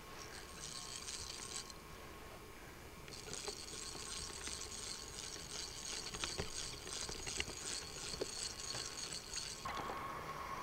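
Geared hand winder whirring as it winds the twisted rubber motor of a rubber-powered free-flight model plane, in two spells (a short one, then one of about six seconds), with a few small clicks.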